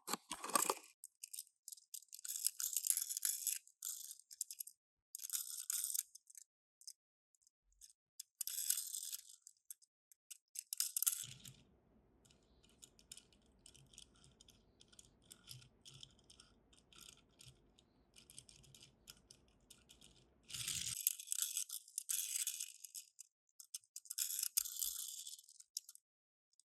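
Toy packaging being handled: short bursts of crisp rustling and crinkling, with lighter rattling in between. A faint low hum sits under the quieter middle stretch.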